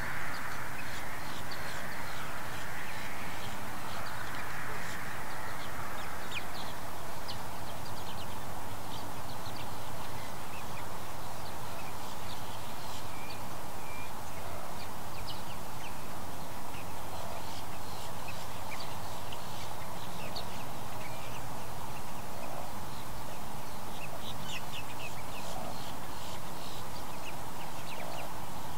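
Wetland ambience: assorted birds calling and chirping over a steady background hiss, busiest in the first several seconds.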